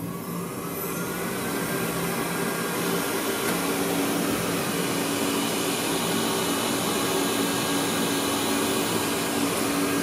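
Xiaomi Mi Robot Vacuum starting a cleaning run: its suction fan spins up with a rising whine, growing louder over the first few seconds, then runs steadily as the robot pulls away from its charging dock.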